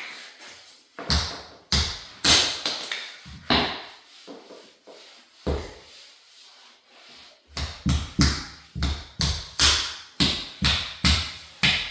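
A series of sharp knocks with a low thud in each: a few spaced strikes at first, then from about two thirds of the way in a quick, fairly even run of about two to three knocks a second.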